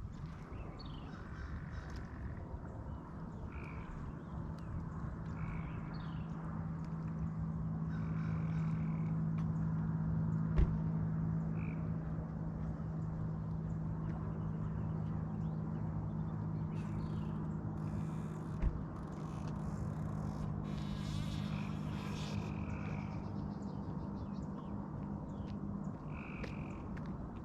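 A boat motor running steadily at low speed, its low hum swelling toward the middle and easing off again, with frogs calling in short repeated chirps over it. Two sharp knocks stand out, one near the middle and one about two-thirds through.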